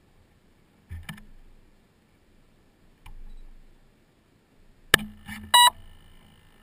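Handling sounds on a stationary electric RC airplane: a dull knock about a second in and a light click near three seconds. About five seconds in comes a sharp, loud click, then a smaller click and a short, clear-pitched electronic beep.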